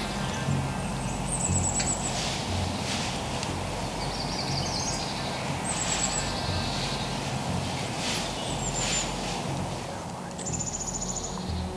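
Small songbirds singing short, high trills that fall slightly in pitch, one every couple of seconds, with a longer trill near the end. A few brief puff-like sounds come between them, over a low steady rumble.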